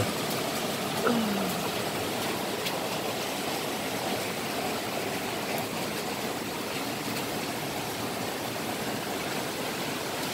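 Rain falling on corrugated metal roofing, a steady hiss with a few light ticks.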